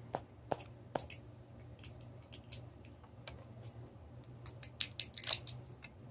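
Small scattered clicks and crackles of fingers cracking open the shell of a Hatchimals toy egg, with a quick cluster of cracks about five seconds in.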